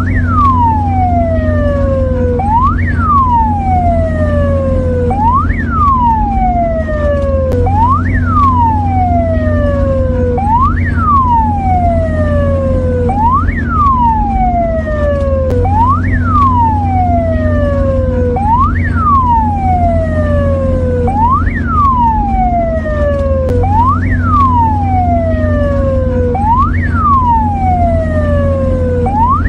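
Mexican ambulance siren sounding a repeating cycle, each tone jumping up quickly and falling slowly, about once every two and a half seconds, over a steady low hum.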